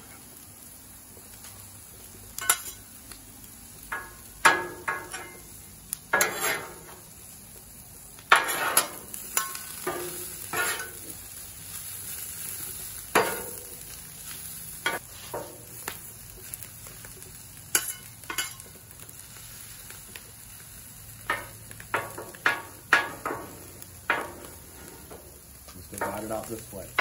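Steel spatulas scraping and clacking irregularly on a hot Blackstone steel griddle top as chopped meat and peppers are cut and pushed into portions, over a steady sizzle of the food frying.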